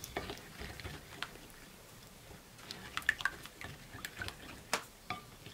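A metal spoon stirring a thin bread sponge in a glass bowl: soft wet squishing, with a few scattered light clicks of the spoon against the glass.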